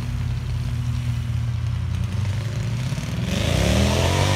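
Car engine idling with an uneven beat, then revving up briefly near the end, its pitch rising as it accelerates.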